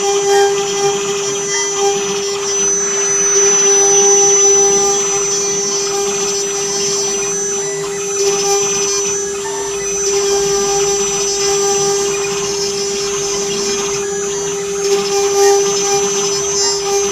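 Stone CNC router at work: a steady motor whine over a noisy hiss that swells and eases a little now and then.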